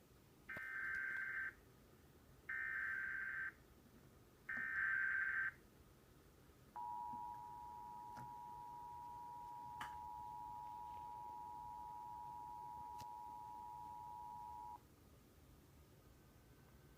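Emergency Alert System tones: three one-second bursts of the screeching SAME digital header, then the steady two-tone attention signal (853 and 960 Hz) held for about eight seconds. This heralds a severe thunderstorm warning.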